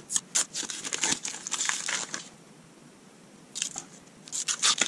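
Protective masking being peeled by hand off an access-door panel: a run of crackly, tearing rustles that stops for about a second just past halfway, then starts again.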